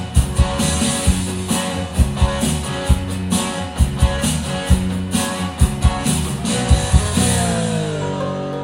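Dance music with guitar and a steady beat, played loud over a DJ sound system. Near the end the whole mix slides down in pitch.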